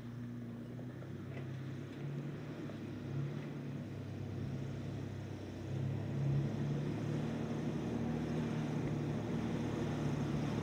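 Toyota Land Cruiser 80-series engine running at low speed as the SUV crawls along a dirt and rock trail toward the microphone. It grows louder about six seconds in as the vehicle comes closer.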